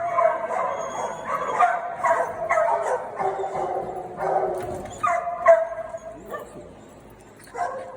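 Several small dogs barking and yipping, with whining in between, in quick repeated bursts that ease off for about a second and a half near the end.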